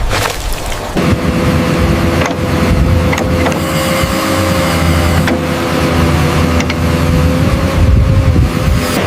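A machine's motor running steadily with a whine that settles in about a second in, with a few sharp clicks over it.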